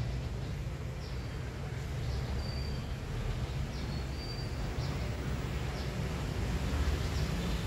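Outdoor ambience: a steady low rumble with faint, short high bird chirps repeating about once a second.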